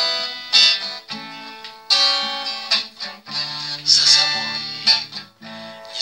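Steel-string acoustic guitar strumming chords in a song's instrumental passage. A sharp stroke comes every half second to a second, and each chord rings on between strokes.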